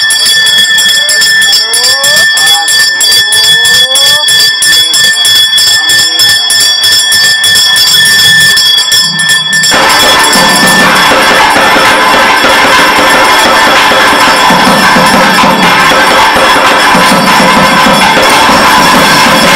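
A brass pooja hand bell rung rapidly and continuously, its steady ringing tones over the strokes. About ten seconds in it gives way abruptly to loud traditional temple music of reed pipes and drums.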